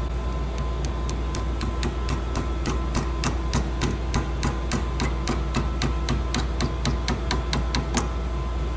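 Small hammer tapping a waxed steel pin through a ramrod pipe's lug and the wooden stock: a quick, even run of light metal-on-metal taps, about four a second, stopping shortly before the end. The pin goes through without a fight.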